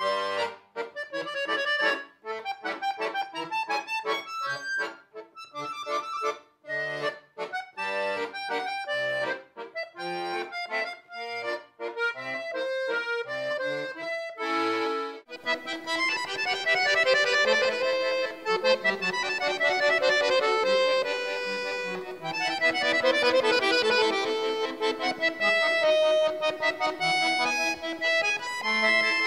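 Solo chromatic button accordion playing: short, detached notes with brief gaps between them. About halfway through it switches to a different performance, a fuller and smoother passage of held notes and chords.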